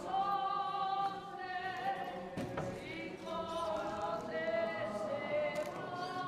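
A choir of voices singing a slow hymn in long held notes, with a single knock about two and a half seconds in.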